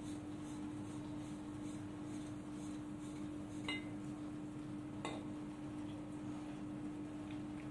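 Metal clinks from handling a brass torch head and a MAPP gas cylinder: a sharp clink with a short ring a little before the middle, a second knock about a second later, and a few faint ticks near the end, over a steady low hum.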